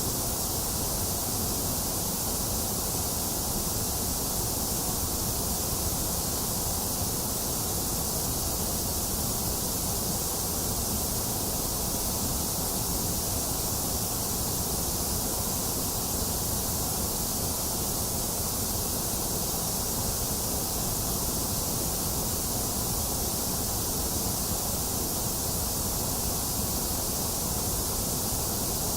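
Steady, unchanging electronically generated white noise: an even hiss that does not vary.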